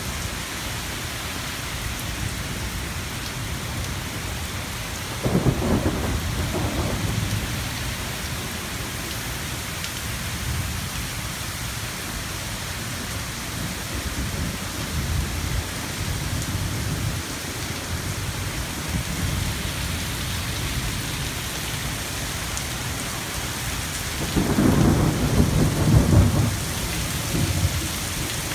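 Heavy thunderstorm downpour: a steady hiss of rain, broken by two loud bursts of low rumbling, one about five seconds in and a longer one near the end.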